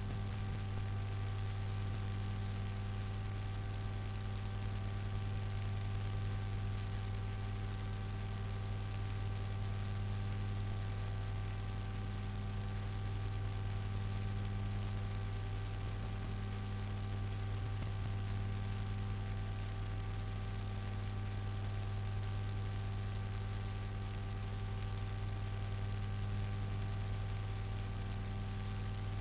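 Steady electrical mains hum from the camera's audio feed, a deep drone with several fainter steady tones above it, over a constant hiss.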